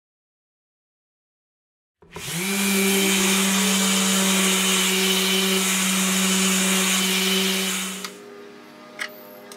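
About two seconds of silence, then a random orbital sander starts, winds up to speed and runs steadily, finish-sanding a hardwood board up to 220 grit. It cuts off abruptly about eight seconds in.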